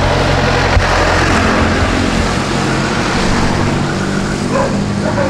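A car driving along a road: steady engine and road noise, with one short knock about a second in.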